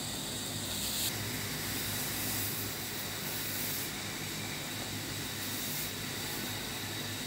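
Water boiling in a steel pot on the stove, a steady hiss, with beet pieces simmering in it after a brief change about a second in.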